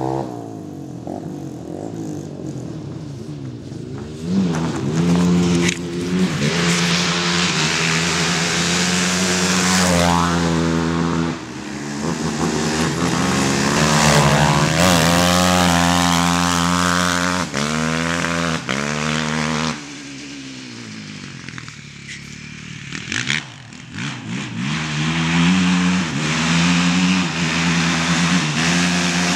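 Four-stroke single-cylinder sport quad engines revving hard through the gears as they pass, the pitch climbing and dropping back with each shift. Quieter for a few seconds a little past two-thirds of the way in, then climbing again.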